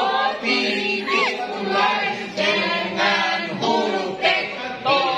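A group of adults singing a song together in chorus, with several voices mixed.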